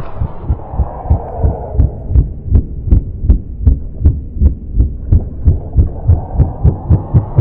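Helicopter rotor thumping slowly and regularly, about three deep beats a second, each with a faint slap on top.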